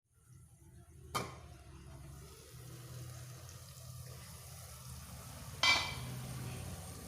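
Ginger, garlic and green chillies frying in a pan while being stirred, with a faint steady sizzle. A sharp clack about a second in and a louder knock that rings briefly near the end, as the spoon strikes the metal pan.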